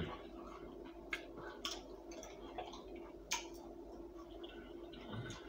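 Quiet chewing of a bacon and French toast sandwich, with scattered soft clicks of the mouth, the clearest about three seconds in, over a faint steady hum.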